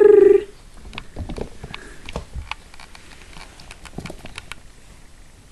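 A high voice falling in pitch in the first half-second, then light scattered pats and ticks of a papillon puppy moving about and pawing at a knitted toy on a carpet.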